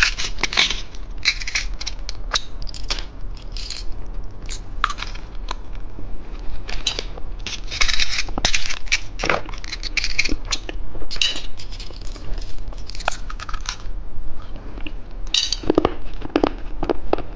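Plastic candy packaging being handled and unwrapped by hand: irregular crinkling and tearing with small sharp plastic clicks.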